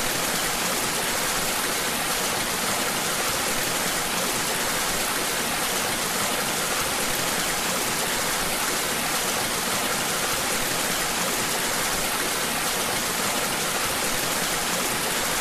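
Whitewater rushing steadily down an artificial canoe slalom channel, an even hiss of churning water.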